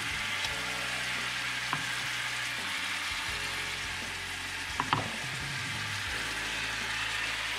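Pieces of fried fish sizzling in a pan of hot curry sauce, a steady frying hiss, with a few clicks as the pieces are put back in.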